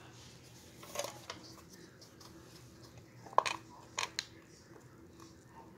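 A few light clicks and faint handling noise of a plastic toy disc launcher as foam discs are loaded into it, the sharpest click about three and a half seconds in.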